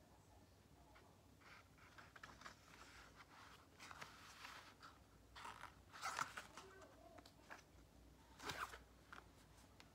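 Paperback book being handled as it is read: soft paper rustles and page movements, with two louder rustles about six and eight and a half seconds in.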